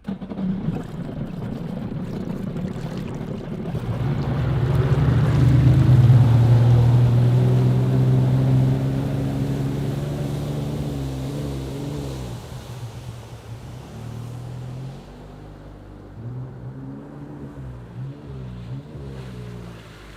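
Jet ski engine running on the water over a wash of water noise. It grows louder to a peak about six seconds in, then fades as it moves off, and its pitch wavers up and down in the quieter last part.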